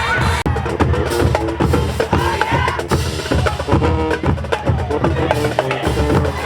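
Marching band music: rapid, rhythmic drumming with held horn notes over it.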